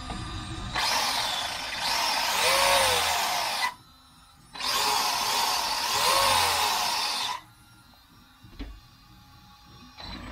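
Brushless motor and drivetrain of an Arrma Gorgon RC truck, run on a 3S LiPo, revved in two bursts of about three seconds each. Each burst is a loud whirring hiss with a whine that climbs and then falls back.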